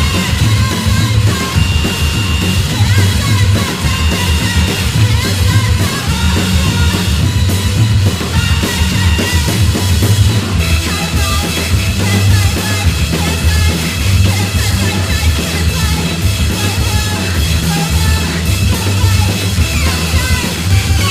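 Loud synth-punk / noise-rock recording: a full band with a pounding drum kit and pulsing bass, and a short high tone that recurs every couple of seconds.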